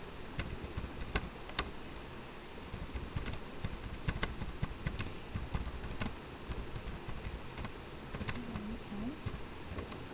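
Typing on a computer keyboard: irregular keystrokes, a few clustered quickly and others spaced out, over a low background rumble.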